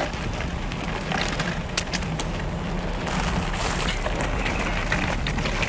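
Mountain bike rolling over a rough dirt trail, picked up through the handlebar: steady tyre rumble with frequent small clicks, crackles and rattles as it goes over stones and twigs.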